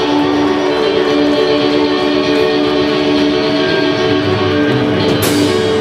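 Live rock band playing an instrumental passage, with electric guitar to the fore on held, sustained notes. A bright crash sounds about five seconds in.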